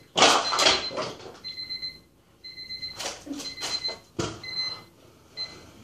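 Electronic alarm beeping: a steady high tone repeating about once a second, each beep about half a second long, until it stops near the end. A loud rustle comes just after the start, and a knock about four seconds in.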